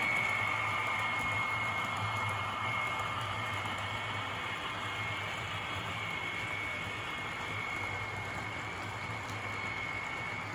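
HO scale model trains running on the track: a steady high whine from the small locomotive motors and gearing over a low rolling rumble from the wheels on the rails.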